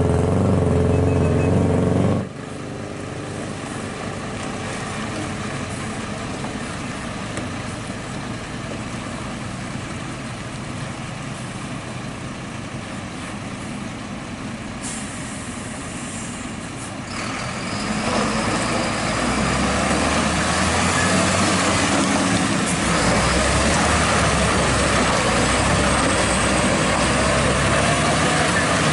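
A vehicle engine runs loudly for the first two seconds and cuts off suddenly. Then a UD Quester tanker truck's diesel engine runs as the truck drives along the mud track, growing louder from about eighteen seconds in as it comes close.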